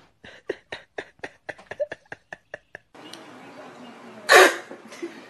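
A person laughing in quick, breathy bursts, about five a second, for about three seconds. Later a single loud, short vocal cry with a falling pitch.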